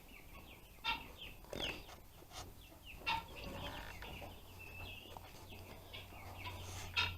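A chicken clucking faintly, in short calls off and on.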